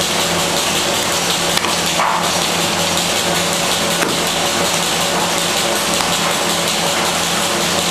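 Steady hum of running machinery over an even rushing noise.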